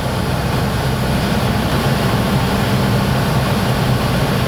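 Single-engine light aircraft's engine and propeller running steadily at cruise power, heard from inside the cabin.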